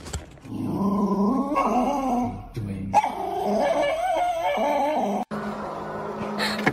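Small dog whining and howling in long wavering cries, in two stretches with a short break about two and a half seconds in; the cries stop suddenly about five seconds in.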